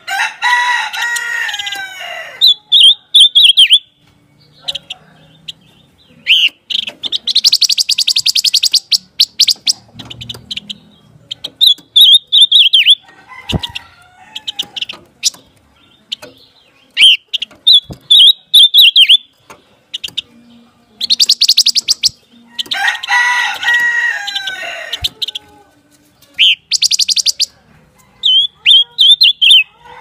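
Silver-eared mesia (pancawarna) singing: repeated phrases of a rapid, very high trill alternating with short, bright descending warbles. Lower, fuller call phrases come about a second in and again around 23 seconds in, with a few faint clicks between phrases.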